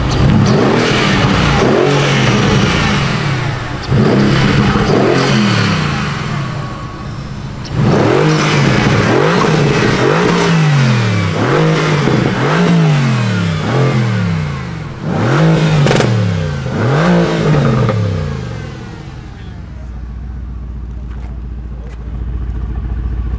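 Renntech-tuned Mercedes-AMG GT R's twin-turbo V8 revved hard again and again, its pitch sweeping up and falling back about a dozen times. It then settles to a steady idle near the end.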